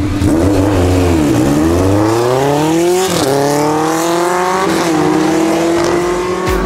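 Vintage inline-four motorcycle accelerating away through the gears. The engine note rises, drops back at a gear change about three seconds in, rises again, then settles into a steady cruise near five seconds.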